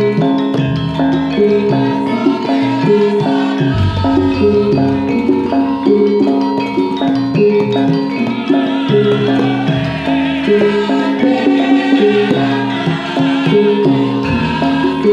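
Javanese gamelan playing a gending: bronze metallophones ring out a repeating melody in even steps over drum strokes.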